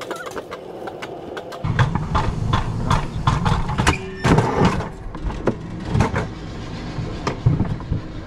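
Alpine coaster sled running down its metal track: a low rumble that grows louder about a second and a half in, with many clattering knocks.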